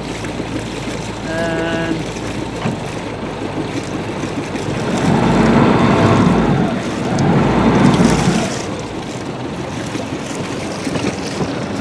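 Steady rushing wind and water noise aboard a sailboat moving slowly, swelling twice into louder, low buffeting about five and seven seconds in.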